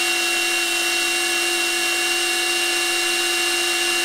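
Ingco 20V brushed cordless rotary hammer drill (CRHLI20168) running free at full speed with a steady motor whine. Its chuck turns at about 850 RPM in a no-load speed test.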